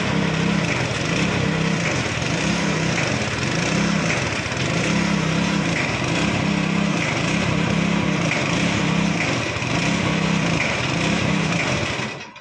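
Small engine driving the hydraulic pump that raises a lowbed trailer's rear ramps, running steadily under load with a low pulse about once a second. It cuts off suddenly near the end.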